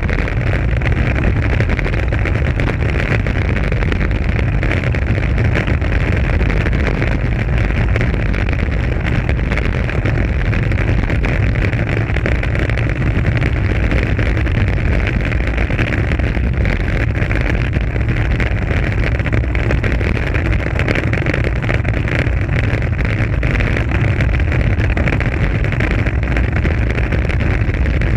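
Steady wind noise over a GoPro Hero 3+ camera's microphone on a bicycle descending at speed, a loud unbroken low rumble mixed with the hiss of tyres on asphalt.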